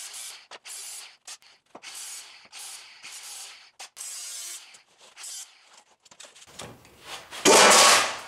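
Angle grinder with a flap disc deburring the cut edges of sheet-steel pieces in short passes: a rasping hiss that comes and goes over the grinder's steady motor hum. Near the end a loud crash, the loudest sound here, as a steel piece drops to the floor.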